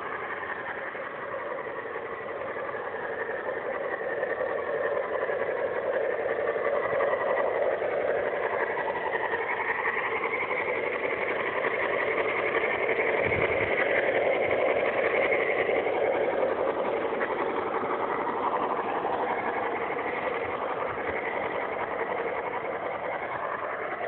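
Garden-scale model Shay geared steam locomotive running with its train along the track: a steady, busy mechanical clatter. It grows louder over the first half as the locomotive comes close, then fades slightly near the end.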